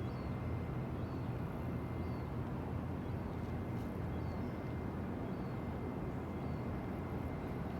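Steady low rumbling outdoor background noise, with faint high chirps repeating about once a second.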